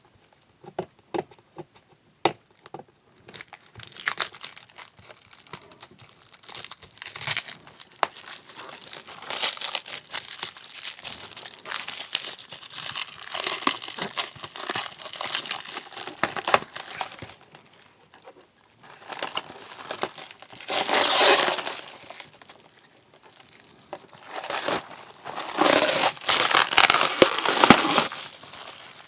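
Plastic packaging crinkling and tearing as a clear acrylic keyboard cover is unwrapped by hand, in irregular rustling bursts with sharp crackles. It is loudest about two-thirds of the way in and again near the end.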